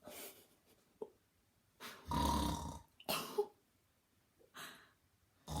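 Snoring in sleep: a few rough snores at uneven gaps, the longest and loudest about two seconds in.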